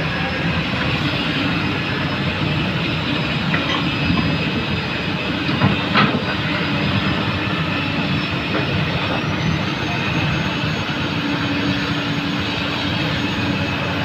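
Komatsu PC200 excavator's diesel engine and hydraulics running steadily under load, with a few sharp knocks, the strongest about six seconds in.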